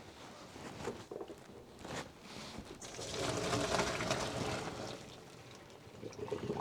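Cooking water poured off a pot of boiled Hakka noodles as they are drained, a splashing rush that swells about three seconds in and eases off after two seconds, with a few knocks of the pot before it.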